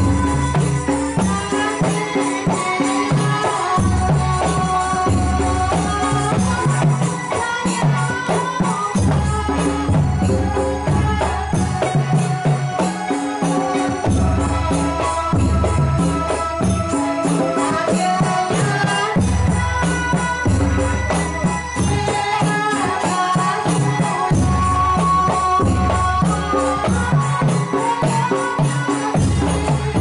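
Javanese Ndolalak dance music played over a loudspeaker: a deep bass beat returning every couple of seconds, a melody on top, and fast, busy shaker-like percussion.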